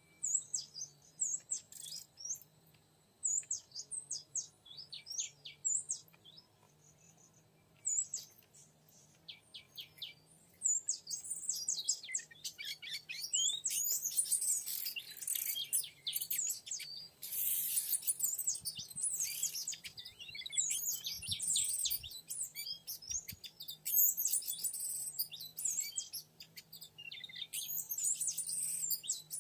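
Oriental magpie-robin song: quick, varied high whistles and chirps, scattered at first, then dense and nearly unbroken from about eleven seconds in.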